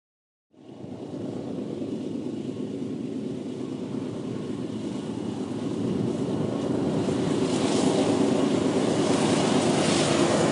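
Diesel locomotives hauling a freight train, their engines running with a steady low hum and rail noise, growing louder from about six seconds in as the train draws closer.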